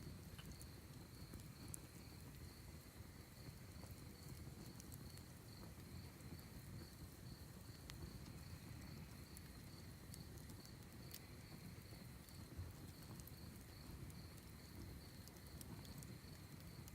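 Faint crickets chirping in a steady, evenly pulsed high trill, with scattered small crackles and pops from a wood fire in a fire pit.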